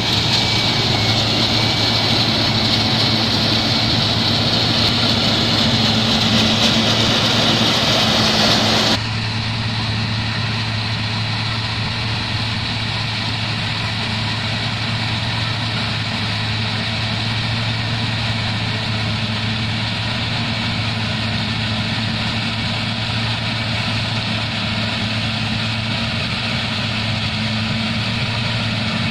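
John Deere sugarcane harvester and a tractor hauling its cane wagon running as they cut and chop cane: a steady engine drone with a low hum. About nine seconds in it drops abruptly to a quieter, more distant drone.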